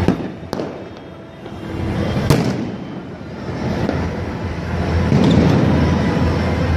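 Firecrackers going off: three sharp bangs, the loudest about two seconds in, over a steady din of loud background music.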